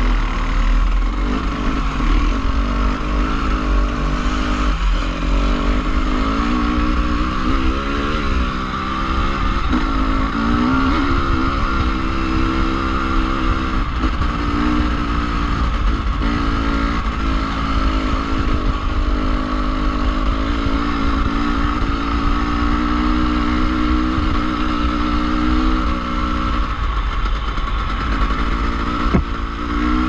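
Off-road dirt bike engine running on and off the throttle, its pitch rising and falling again and again. A sharp knock near the end.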